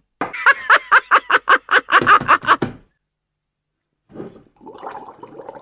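A short vocal sound chopped and repeated in a rapid stutter, about four or five times a second for two and a half seconds. After a second of silence comes a low, rough bubbling slurp through a drinking straw.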